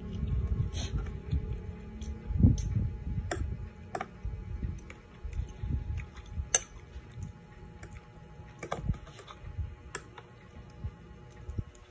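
Spoon and fork clicking against a plate as food is scooped up: sharp, irregular clicks, with a low rumbling noise under them in the first few seconds.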